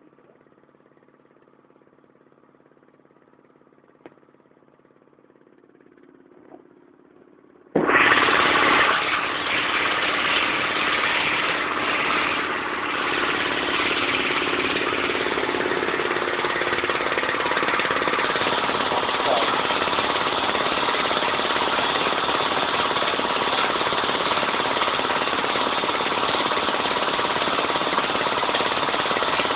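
Homemade belt-driven air compressor with a 2.2 kW electric motor switching on about eight seconds in and then running with a loud, steady mechanical noise as it pumps air into its tank.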